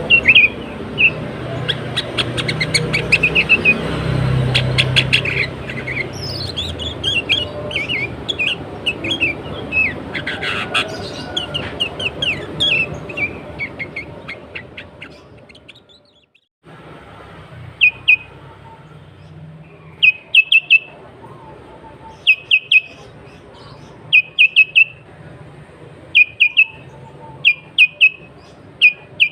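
Sooty-headed bulbuls (kutilang) calling. In the first half many chirps and whistles overlap above a low rumble, then fade out. After a brief gap, short bursts of two or three quick notes repeat every couple of seconds.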